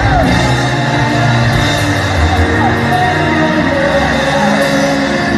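Loud live worship music from a band with a drum kit, amplified through loudspeakers, with singing over it.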